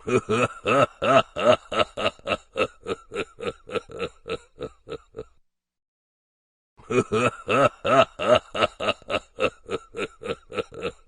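Laugh sound effect: a long run of even, rapid 'ha' pulses, about four a second, slowing and fading over about five seconds; after a short silence the same laugh plays again.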